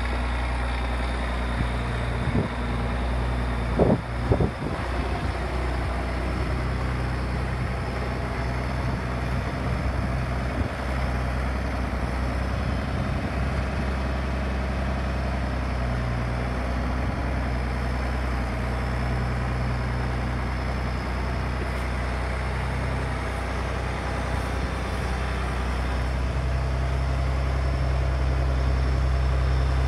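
International Harvester 5088 tractor's six-cylinder diesel engine running steadily as the tractor drives slowly around. There are a few sharp knocks about four seconds in, and it grows louder near the end as it comes close.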